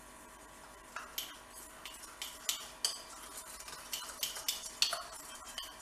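Small spoon stirring a thin corn flour and rice flour batter in a small stainless steel bowl, knocking against the bowl in irregular light clinks.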